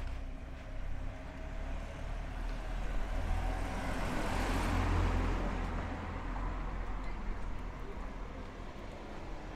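A small hatchback car, a Ford Fiesta, drives past close by. Its engine and tyre noise build to their loudest about halfway through, then fade as it goes by.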